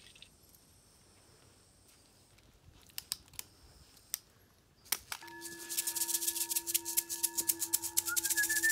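A few faint clicks, then about five seconds in a singing bowl rings out with a steady tone and a hand rattle starts shaking rapidly and evenly. Near the end a warbling whistle joins in.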